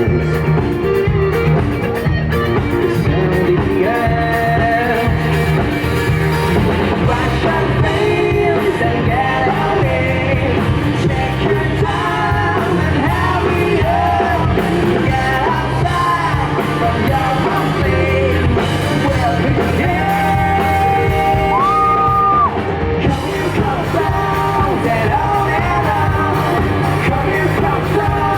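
Rock band playing live, with a lead vocal singing over the band.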